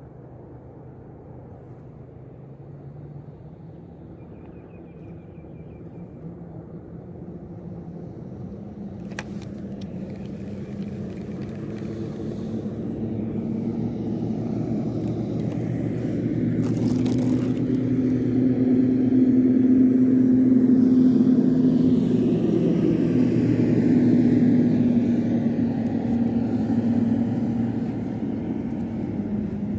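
A motor's steady low hum builds slowly, loudest a little past the middle, then eases off, as an engine passes by. There are a couple of brief knocks early on.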